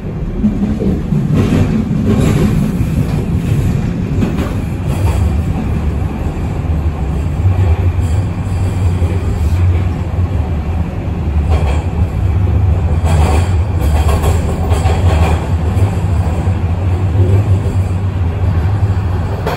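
Toronto subway train running through the tunnel, heard from inside the car: a steady low rumble and hum of wheels and motors, with a few sharp clacks over the rails.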